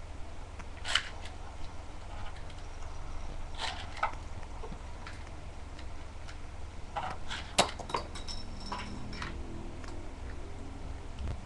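Scattered sharp plastic clicks and rattles of Beyblade parts being handled and snapped together, the sharpest about seven and a half seconds in, over a steady low hum.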